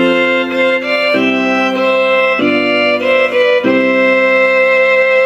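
Casio LK-280 electronic keyboard playing held chords in a violin-like string voice. The harmony changes three times, about every second and a quarter, and the sound stops cleanly at the end.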